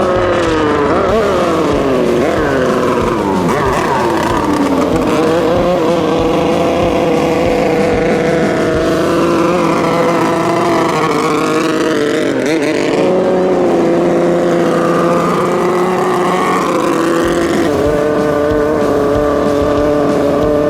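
Jet 650-class racing speedboat engines running at high revs, several at once, their pitch dropping as boats pass by, with a steadier high engine note near the end.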